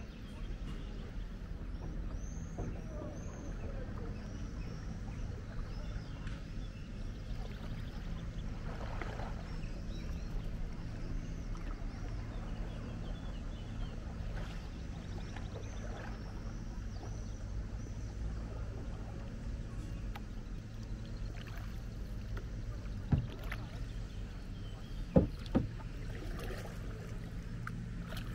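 Kayak on a calm river: light water splashes and drips from paddle strokes over a steady low rumble. A few sharp knocks stand out near the end.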